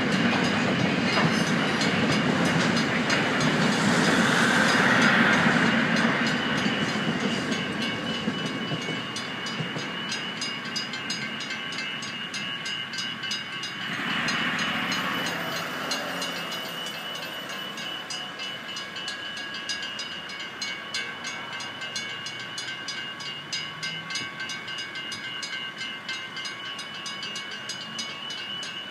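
Freight train wagons clattering across a level crossing, loudest in the first six seconds and then fading as the train clears. Over it the crossing's warning bells ring steadily and rapidly throughout, with a brief whoosh about halfway through.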